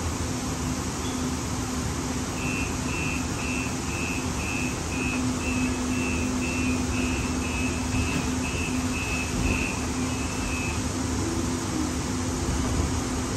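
Inside a Siemens LRV4 light rail car: a steady low hum over the car's running noise, with a string of even, high-pitched electronic beeps, about two a second, starting about two seconds in and lasting some eight seconds.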